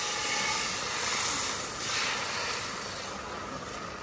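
Yellow pancake batter sizzling in a hot wok as the wok is tilted and swirled to spread it, a steady hiss that surges twice and then dies down near the end.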